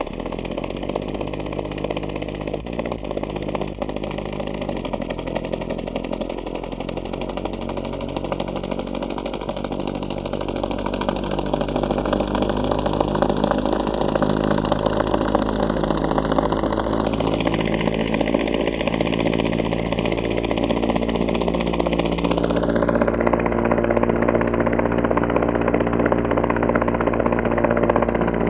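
Synthesized helicopter chopper sound from an NI Absynth patch built on a looped, sampled rotor-blade-slap waveform: a steady mechanical, engine-like drone with a comb-filter sweep moving through it. The swept colouring slowly rises in pitch, jumps abruptly twice in the later part, and the whole sound grows a little louder.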